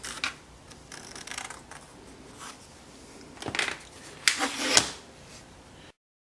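Hand-handling noises on a workbench: a scattering of light clicks, knocks and scraping rubs as pieces of plywood and tools are moved and set down, the loudest clatters near the end, then the sound cuts off abruptly.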